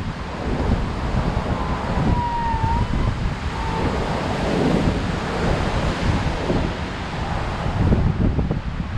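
High surf breaking and washing on a sandy beach while strong wind buffets the microphone with low rumbling gusts. A brief, faint whistle-like tone sounds about two seconds in.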